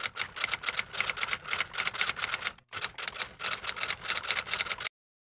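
Typing sound effect: a quick, even run of key clicks, about nine a second, with a brief break near the middle. It cuts off suddenly near the end.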